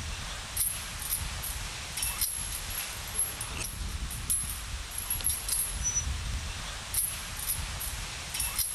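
Metal swing set squeaking again and again in short high squeaks as two swings go back and forth, over a low rumble of wind on the microphone.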